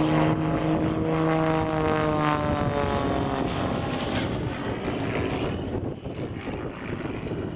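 Extreme Air XA41 (Sbach 300) aerobatic monoplane's piston engine and propeller passing by: a steady drone that drops in pitch about two seconds in as it goes past, then fades.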